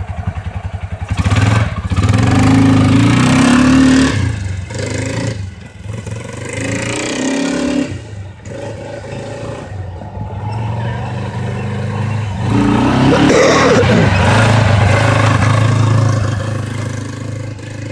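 ATV (quad bike) engine idling, then revved hard as it pulls away about a second in. The throttle eases and picks up again several times, with another long spell of hard acceleration past the middle, and the engine sound fades toward the end as it drives off.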